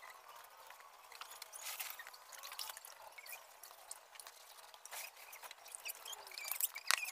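Water dripping and trickling off a wet motorcycle seat onto concrete: faint, irregular small drips and splashes that get busier near the end.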